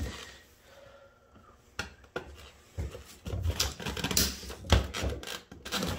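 Fuel pump module and its lines knocking and rattling in the gas tank opening as it is wrenched and wiggled loose by hand. It starts with a few separate clicks about two seconds in, then a busier run of knocks and rattles.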